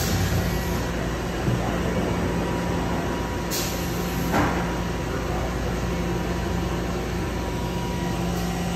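Mazak Nexus VNC410B vertical machining center running a milling cut under flood coolant: a steady machine hum with coolant spraying and chips flying, and two brief sharper noises about halfway through.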